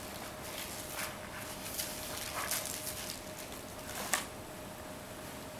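Plastic overhead-projector transparencies and paper being handled: soft rustling with a few light taps and clicks, the sharpest about four seconds in, over a steady faint hum.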